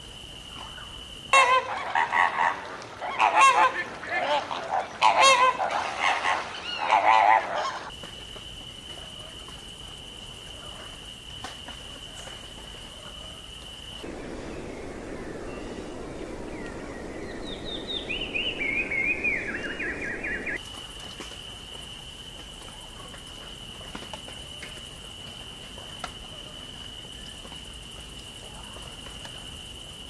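Loud bird calls, repeated in quick succession for about six seconds, over a steady high-pitched tone. Later a short series of whistled notes steps downward over a soft rushing noise.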